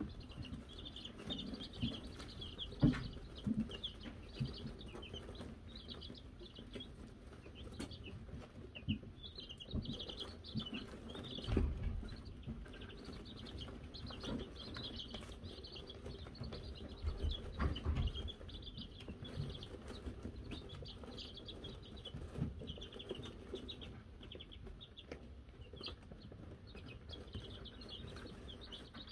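A brood of Wyandotte chicks peeping without pause, many short high cheeps overlapping, with a few soft thumps in between.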